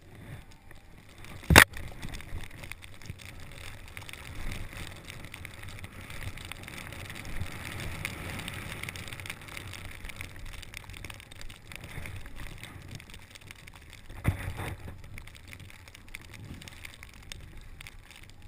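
Snowboard sliding and carving through snow, a steady scraping hiss with low rumble from the board. A sharp knock about a second and a half in, and another near the end.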